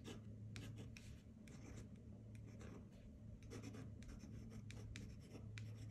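Pen nib scratching faintly across 300 gsm watercolour paper as a word is written out by hand, with small ticks as the nib lifts and lands between strokes.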